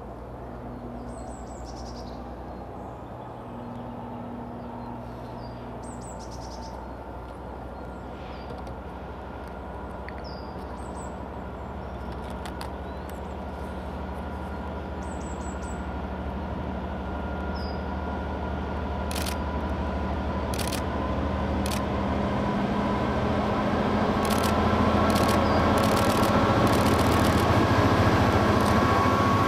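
Class 67 diesel-electric locomotive's two-stroke V12 engine approaching with its train, growing steadily louder until it draws level. Sharp clicks come in over roughly the last ten seconds, and birds chirp in the first half.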